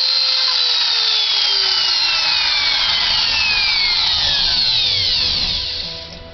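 Skil wood router's motor winding down: a high whine that holds briefly, then falls steadily in pitch and fades away over about five seconds.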